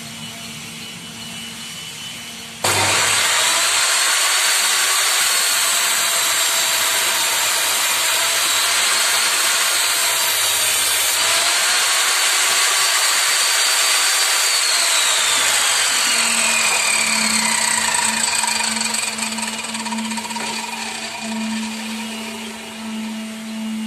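Table saw switched on about three seconds in, running with a high whine while a board is ripped along a clamped wooden fence. About twelve seconds later it is switched off and the whine falls in pitch as the blade spins down. A low steady hum is heard before and after.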